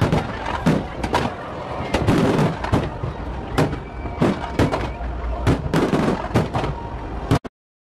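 Fireworks display: aerial shells bursting in an irregular string of sharp bangs and crackles, a few each second. The sound cuts out abruptly near the end.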